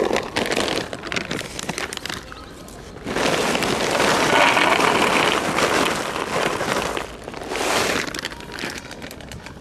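Dry cat kibble pouring from a paper bag into a foam tray: a dense, steady rattle of pellets starting about three seconds in and lasting about four seconds, with a shorter burst just before the end. Crinkling of the paper bag and scattered clicks come before the pour.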